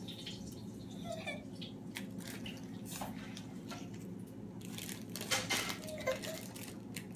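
Small plastic bag rustling and crinkling in a toddler's hands, with scattered light clicks as goldfish crackers are picked off a tile floor and dropped in, loudest about five seconds in. A child whimpers briefly twice.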